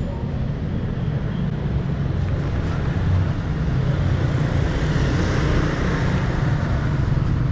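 Car engine and road noise heard from inside the cabin: a steady low rumble with a hiss that swells about two-thirds of the way through.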